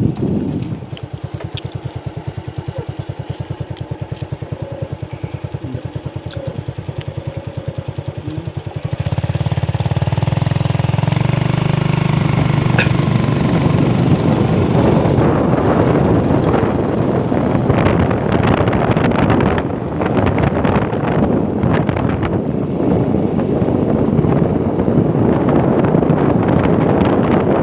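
Motorcycle engine running with an even, quick pulsing beat while riding. About nine seconds in, loud wind rushing over the microphone comes in suddenly and dominates, with the engine still under it.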